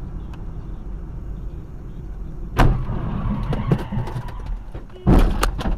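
Car driving with steady engine and road noise heard from inside the cabin, broken by a sudden loud bang about two and a half seconds in, some smaller knocks and rattles after it, and a quick cluster of loud knocks near the end.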